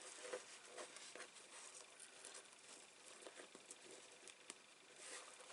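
Faint, scattered small ticks and rustles of ribbon and card being handled while a bow is tied, over a steady faint hiss.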